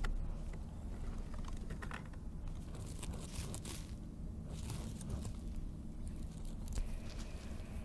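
Calico cat digging with her front paws in loose soil and rotten-wood debris: irregular scratching and rustling with short crackles.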